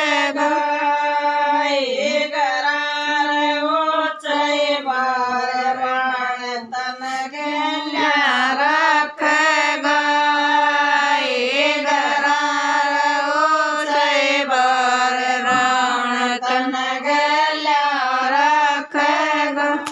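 Group of women singing a Haryanvi folk song (sangeet geet) together in a chant-like unison, with long held notes.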